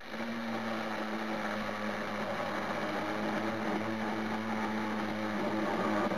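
42V cordless electric mini chainsaw running at a steady whine as it cuts a thin branch, switched on for about six seconds and then stopping abruptly.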